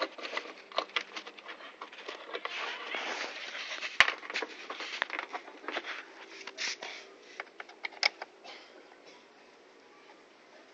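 Hands working a Yamaha Mio scooter's aluminium brake lever and the plastic handlebar cover around it: a run of irregular clicks, knocks and rattles, with one sharp click about four seconds in, tapering off near the end.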